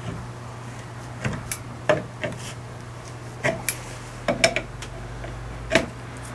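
Scattered sharp metallic clinks and clicks of an adjustable wrench being fitted and turned on the nut of a bearing puller clamped under a differential carrier bearing, over a steady low hum.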